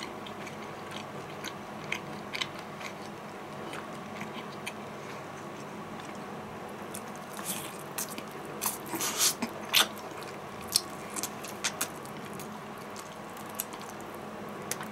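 Person biting and chewing KFC fried chicken, with scattered crunchy clicks and smacks from the crisp coating. The eating noises come thickest about eight to ten seconds in.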